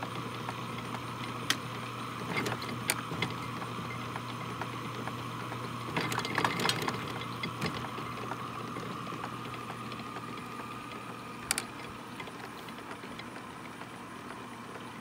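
Antique Deering reaper's rake and reel mechanism turning, driven by an electric motor: a steady motor hum with irregular wooden and metal clacks and knocks as the rake rollers ride the cam track, including a cluster about six seconds in. The rake is set to sweep the table every other turn.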